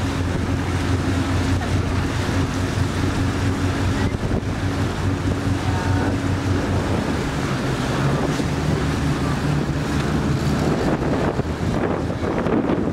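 A boat's engine running steadily under wind buffeting the microphone; about eight seconds in the engine's pitch changes as its speed shifts.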